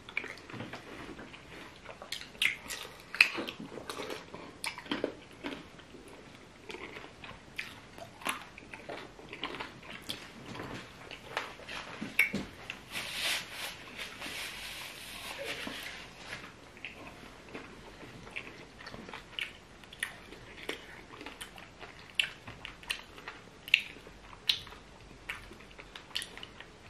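Close-miked eating sounds from two people eating fufu and chicken in pepper soup with their hands: chewing, with many irregular wet mouth clicks and smacks. About halfway through, a louder hiss-like noise lasts about three seconds.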